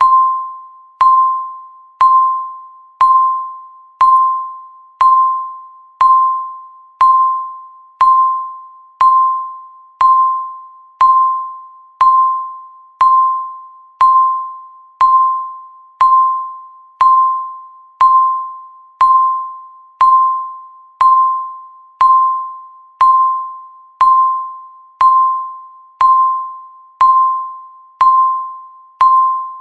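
Countdown timer's electronic beep sounding once every second, marking each second counted down. Each beep is a single mid-pitched tone that starts sharply and fades away before the next.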